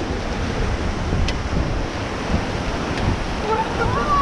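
Rushing river whitewater around a rafting boat, a steady churning wash, with wind buffeting the microphone.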